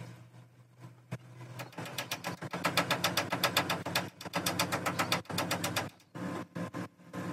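Cloth rubbed hard over a car headlight's chrome reflector: a quick, even run of scratchy wiping strokes from about two seconds in, slowing into a few irregular rubs after about five seconds.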